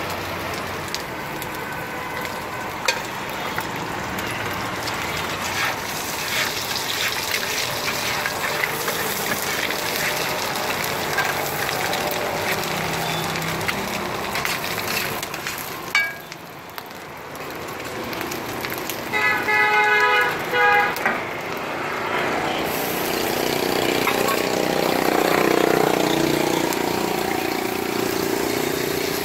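Egg sizzling on a large flat street-stall griddle, with a metal spatula scraping and tapping on it against a background of street traffic. A vehicle horn honks about twenty seconds in.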